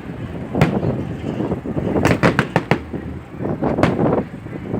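Fireworks bursting: a bang about half a second in, a quick run of sharp cracks about two seconds in, and another bang near the end.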